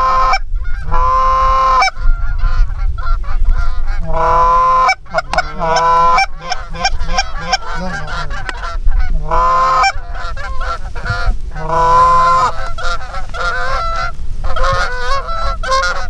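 Canada geese honking, many short calls in quick succession and overlapping, as a flock circles in low overhead.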